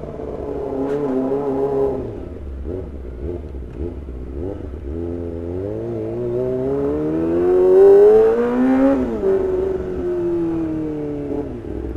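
Kawasaki ZX-25R's 250 cc inline-four engine running at low revs, then climbing in one long rising rev from about five seconds in to its loudest point near nine seconds, where the pitch falls back and holds steady.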